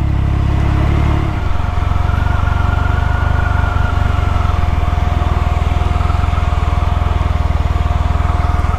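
Cruiser motorcycle engine running at low speed. About a second and a half in the revs drop to a slow, even chug, and near the end the engine cuts out.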